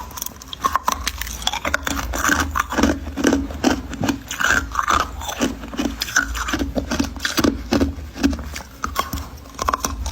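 Crunchy ice being bitten and chewed: many sharp crunches and cracks in quick, irregular succession.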